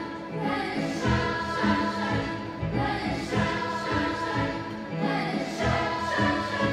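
Children's choir singing a song in several parts.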